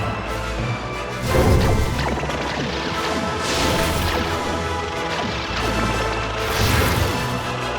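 Action-film score playing under crashing, smashing sound effects, with the loudest hits about one and a half seconds in and again near the end.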